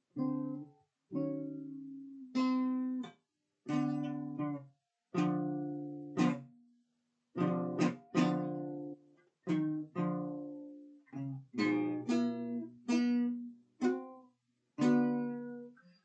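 Acoustic guitar played slowly: chords struck one at a time, roughly one a second, each ringing out and dying away, with short pauses between them.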